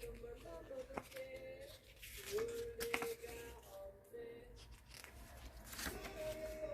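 Soft background music with a held melody, over the crisp rustles and short snaps of the album's paper booklet pages being handled and turned, a few sharp ones about a second, three seconds and six seconds in.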